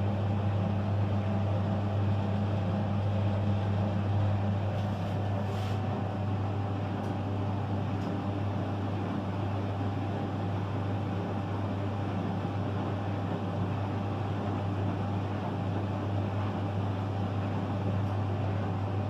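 Clothes dryer running, its motor and turning drum giving a steady low hum over an even whir.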